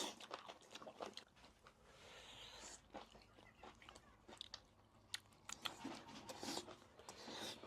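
Faint chewing and crunching of food in the mouth, with scattered small clicks.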